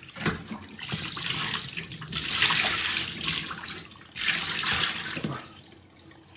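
Kitchen tap water running into a sink as a small mullet is rinsed under the stream, in two spells, the second shorter, then easing off near the end.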